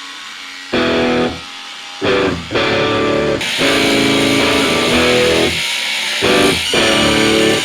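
Rock music with electric guitar chords played in short stop-start bursts, moving into a fuller, steadier passage with a bright hissing top about three and a half seconds in.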